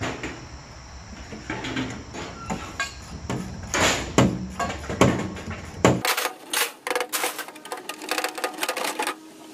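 Irregular clanks and knocks of hard objects being handled. About six seconds in the background rumble cuts off and a quick run of sharp clicks and ticks follows for about three seconds.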